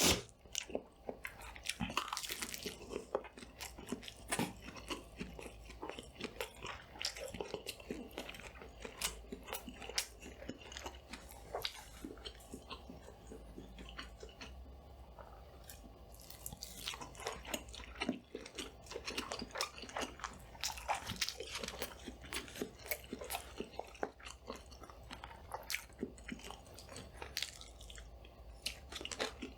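Close-miked eating: steady chewing with frequent crisp crunches and bites, plus wet mouth sounds, heavier in a few stretches. A faint steady low hum sits underneath.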